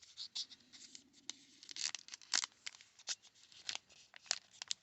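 Wrapper of a baseball card pack crinkling and crackling in the hands as it is worked at and pulled to tear it open, in many irregular sharp crackles.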